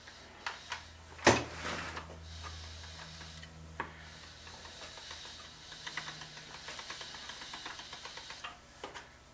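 Pasta machine being worked: a sharp click about a second in, then a steady low mechanical hum with a hiss and light rattling that stops near the end.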